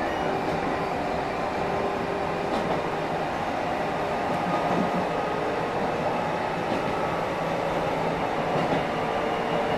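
Enshu Railway electric train running steadily along the track, heard from inside at the front of the car: a continuous rumble of wheels on rails and running gear, with a few faint steady tones above it.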